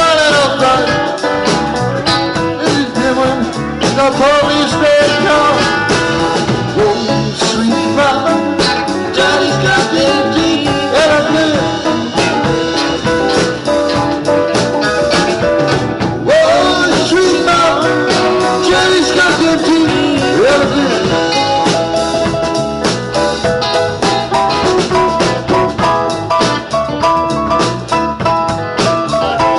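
Live band playing a blues song on electric guitars, keyboard and drum kit.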